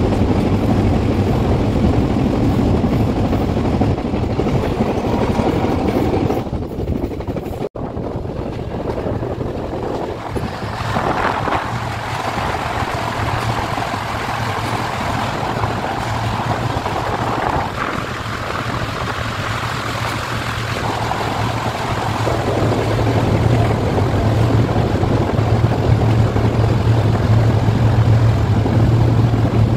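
Steady rumble and rush of a moving train heard from on board, with a low hum underneath. The sound breaks off for an instant about eight seconds in, and the low hum grows stronger near the end.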